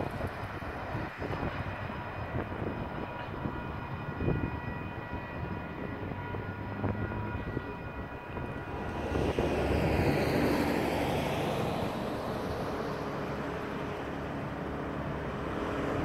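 Steady hum of a diesel locomotive's engine out of view. About nine seconds in, a road vehicle passes close by, its noise swelling to the loudest point near ten seconds and then fading.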